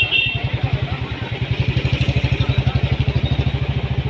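Royal Enfield Bullet single-cylinder motorcycle engine running at low speed in slow traffic, its exhaust giving an even, rapid thump of about a dozen beats a second.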